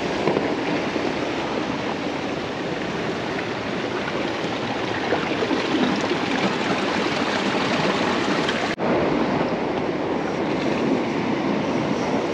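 Strong sea waves washing against a rocky shore: a steady rush of surf, with a brief sudden dropout about nine seconds in.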